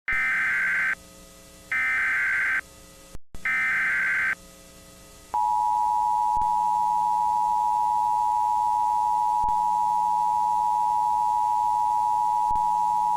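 Emergency Alert System tones: three short warbling bursts of SAME header data, then the two-tone attention signal held steady for about eight seconds. Together they mark the start of an emergency alert, here a tornado warning.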